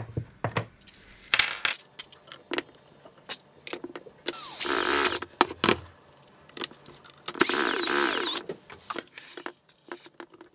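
Small metal wheel hardware (washers, nuts, spacers, screws) clicking and clinking as it is handled against a plywood plate. There are two runs of a cordless drill-driver, each about a second long, roughly halfway through and again a few seconds later.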